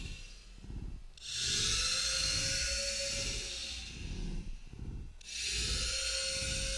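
BMS-210DMH digital servo running at 5 V, slewing its arm back and forth. Its motor and gears whir in two long stretches, starting about a second in and again just after five seconds, over a steady whine.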